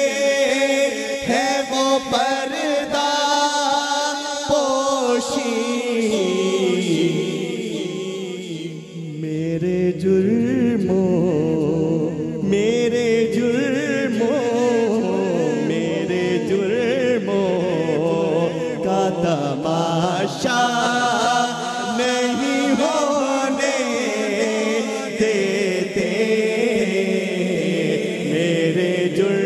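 Male voices singing an Urdu naat in long, wavering, ornamented lines, with no pause for the whole stretch.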